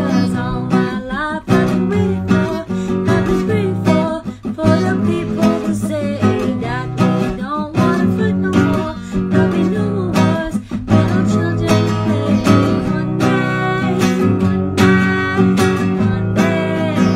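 Acoustic guitar played continuously, with a voice singing along.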